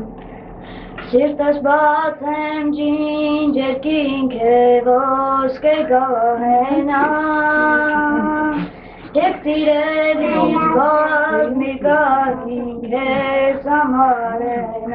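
A boy singing solo with long held notes and ornamented turns, coming in about a second in and pausing briefly a little past the middle.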